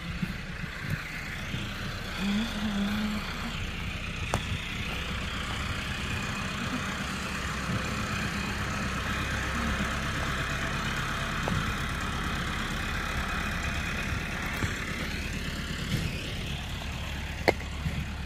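A tractor engine running steadily, a low even hum. A couple of sharp clicks come through it, the loudest near the end.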